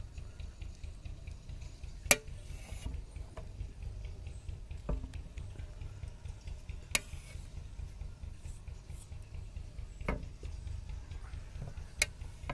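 Knife blade clicking against a metal plate as hard-boiled eggs are sliced in half: four sharp clicks a few seconds apart, the first the loudest, with a few fainter taps, over a low steady rumble.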